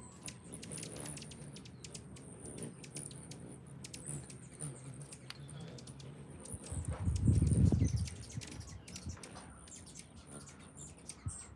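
Hummingbirds chirping and squeaking high-pitched at the feeders, with many scattered short clicks. A low rumbling noise swells for about a second near the middle.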